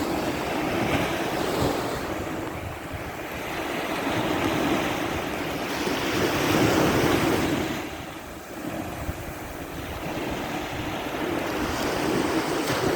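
Sea surf: waves washing onto the shore, the noise swelling and easing every few seconds, with wind buffeting the microphone.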